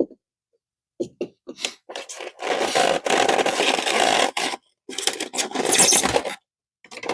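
Plastic toy parts and packaging scraping and rustling as they are handled and pulled out of the box. The sound comes in several bursts starting about a second in.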